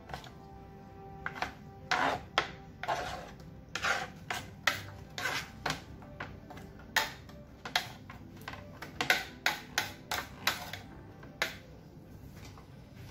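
Kitchen knife chopping tomatoes on a plastic cutting board: sharp, irregular knocks of the blade against the board. Soft background music plays under it.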